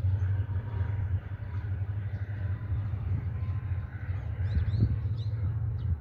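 Low rumble of the departing Mugunghwa-ho passenger train fading into the distance. A few short bird chirps come about four and a half seconds in.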